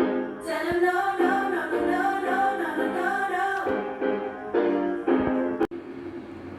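Music: sustained piano or keyboard chords with a voice singing over them. It cuts off abruptly near the end and a quieter sound follows.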